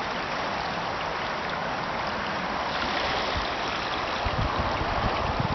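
Steady rush of flowing river water. Wind buffets the microphone in low rumbles near the end.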